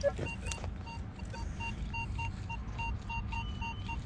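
Minelab metal detector beeping as its coil sweeps a buried target: short beeps of one pitch, about three a second and unevenly spaced. The signal is jumpy, which the detectorist puts down to trash in the ground.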